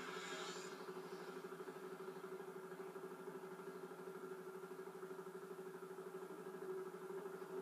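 Steady mechanical hum of a running motor, with a high hiss that stops under a second in.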